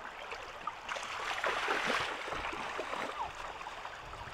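Shallow muddy floodwater splashing and sloshing, with small drips and splashes throughout, loudest about two seconds in.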